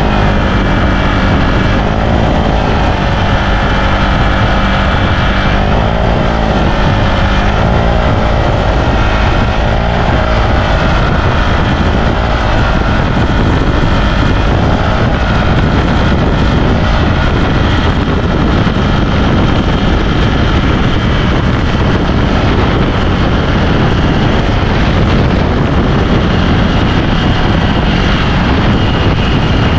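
Single-cylinder Honda Click scooter engine running through a Sun Racing power pipe aftermarket exhaust, heard while riding, with wind noise on the microphone; its pitch shifts a little during the first several seconds and then holds steady.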